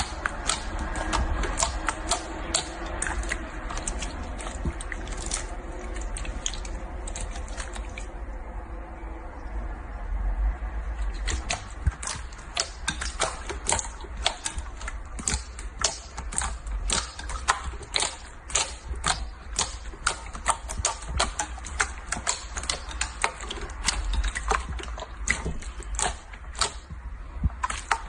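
Slime being squeezed and worked by hand, giving irregular sharp, wet clicks and pops, a few each second and coming thicker in the second half, over a steady low hum.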